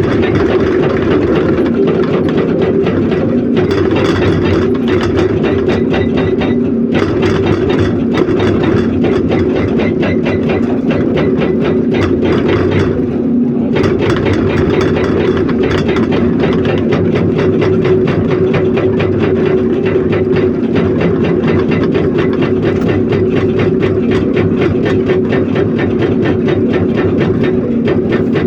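Doosan DX300LCA excavator's hydraulic rock breaker hammering rock in a fast, continuous rattle of blows over the steady drone of the diesel engine, with a few brief pauses in the hammering.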